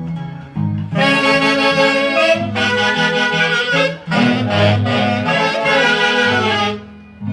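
Huancayo-style orquesta típica playing, with its saxophone section carrying melodic phrases over a steady low bass line. The horns break off briefly about four seconds in, then again near the end, leaving only the bass.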